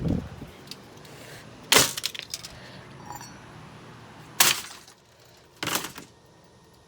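Three hard blows on a running Lasko box fan, each one a sharp crack of breaking plastic. The fan's faint motor hum cuts out about five seconds in, after the second blow: the fan has stopped working.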